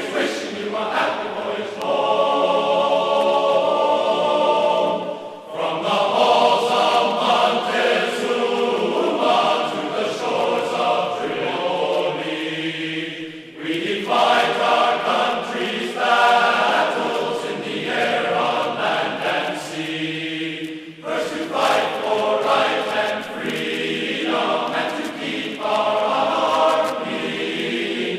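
Background music with choir-like sustained voices, moving in phrases several seconds long with short breaks between them.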